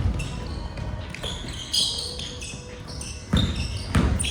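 Basketball bouncing on a gym floor during a game, with a few sharp thuds about three seconds in and short high squeaks in between, in a reverberant hall.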